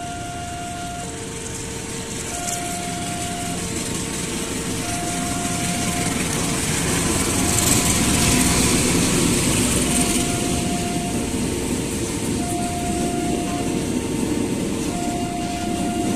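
Diesel-hauled passenger train passing close by: engine and wheel noise swells as the locomotive goes past about halfway through, then the coaches roll by. Over it a level-crossing warning alarm sounds, alternating a higher and a lower tone in steady repeats.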